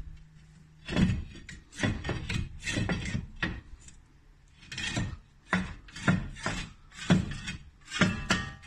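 Repeated scraping rubs, about two a second, from a turning car wheel whose tyre is badly worn and torn.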